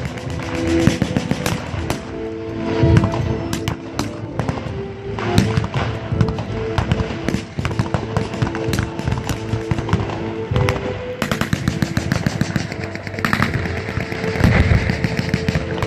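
Blank gunfire in a staged WWII battle: scattered single shots and quick bursts, going on throughout, over background music with held notes.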